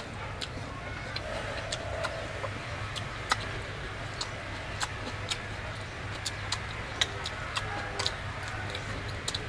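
Irregular sharp clicks and crackles of eating: chewing and mouth sounds and grilled prawn shells being pulled apart by hand, over a steady low hum.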